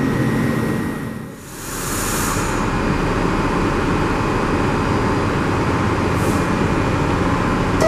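New York City subway train running at a station, a steady rumble and hiss, with a short drop in level about a second and a half in.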